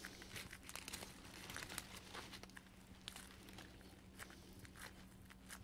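Faint scratchy rustling and crackling of self-adhesive hook-side Velcro being pressed and rubbed down by fingers onto a sanding stick, in many small irregular ticks. A faint steady low hum runs underneath.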